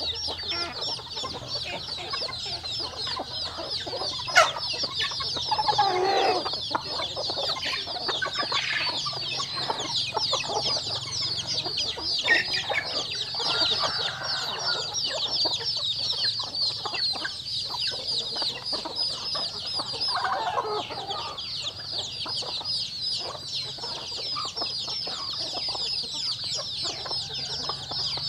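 Chickens feeding: chicks peeping non-stop in a dense, high chorus, with hens clucking every so often over it. A single sharp click comes about four seconds in.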